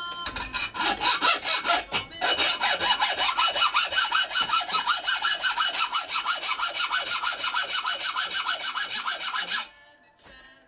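Hacksaw cutting a metal piece clamped in a bench vise: fast, even back-and-forth strokes with a faint steady high ring over them. There is a brief pause about two seconds in, and the sawing stops suddenly near the end.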